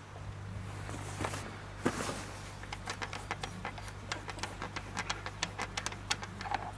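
Quick little metallic clicks, about three or four a second, as a small metal cap is worked loose and unscrewed from the carburettor of a 1937 Petter M type stationary engine, over a steady low hum.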